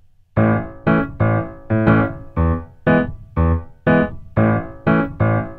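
Background score: a keyboard playing a steady run of struck notes, about two a second, each dying away, starting just after a short pause.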